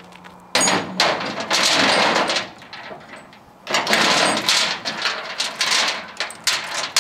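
Steel load-binder chain rattling and clanking against a steel truck flatbed as it is lifted and hooked into a chain binder. The clatter comes in two long stretches, the first about half a second in and the second a little before the middle, with sharp knocks among them.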